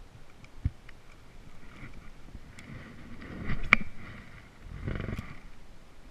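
Water swishing and splashing around a paddleboard in two swells, with a sharp knock about three and a half seconds in.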